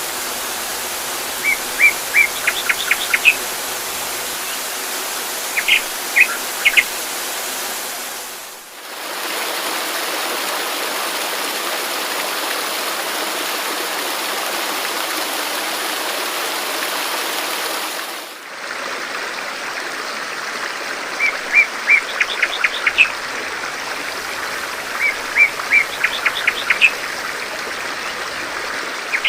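Steady rushing water, like a waterfall or stream, with a small bird singing short runs of quick high chirps near the start and again in the second half. The water sound dips briefly twice, and the bird is silent through the middle stretch.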